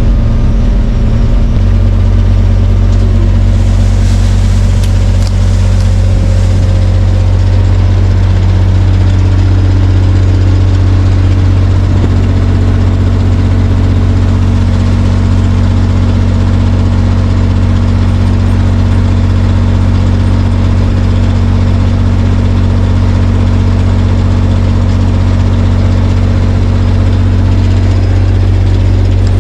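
Motor vehicle engine running steadily with a loud, deep drone; its tone shifts slightly about a second and a half in.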